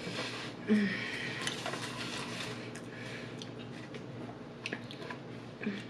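Close-miked chewing and wet mouth sounds while eating, with soft clicks and smacks, after a brief hummed "mm" just under a second in.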